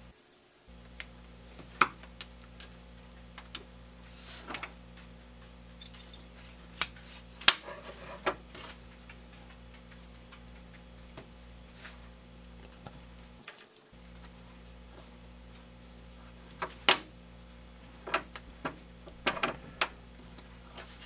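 Small brass and steel parts of a hand-made ice pick clicking and clinking as they are fitted together and set down on a wooden workbench: scattered sharp clicks and taps, a cluster of louder ones a third of the way in and again near the end, over a steady low hum.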